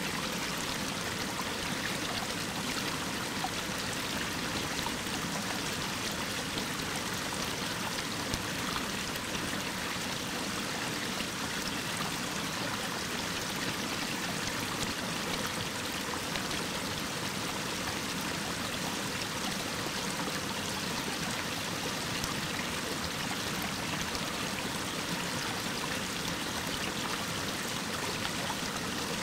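Waterfall cascading down a rock face: a steady, even rush of falling and splashing water.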